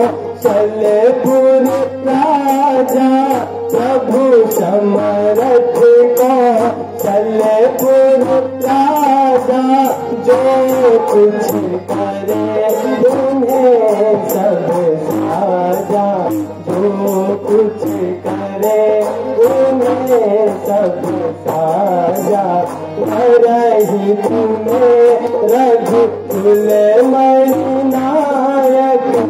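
Loud sung verse of a Ramlila stage play: a voice singing a winding melodic line over instrumental accompaniment and a steady drum beat.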